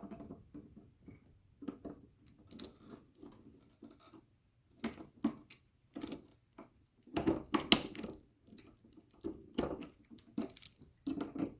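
Irregular metallic clicks, clinks and short scrapes as a cutter is worked against the metal tabs of a lithium iron phosphate cell pack, with a cluster of louder clicks about seven to eight seconds in. The cutter is struggling, cutting on one side and not the other.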